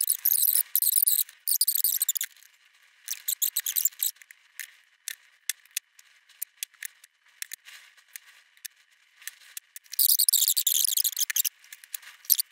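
Hands working on a blue mains hookup plug and its cable: rustling and scraping in short bursts with many scattered light clicks of plastic parts and tools, and a longer, louder scrape about ten seconds in.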